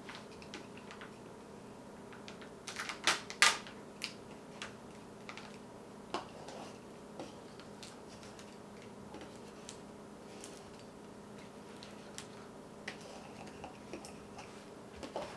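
Plastic scraper tool rubbing over transfer tape on a metal pizza pan, burnishing the vinyl down so no air bubbles are left, with scattered light clicks and taps; the loudest clicks come about three seconds in.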